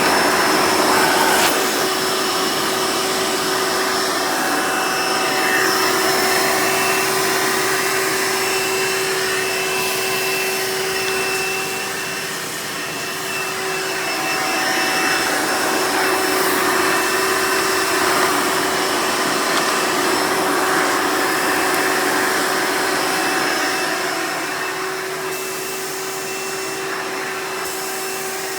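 Hoover Elite upright vacuum's direct-air motor running in tool mode with the hose attached: a steady whir with a fixed whine, dipping slightly in loudness a couple of times.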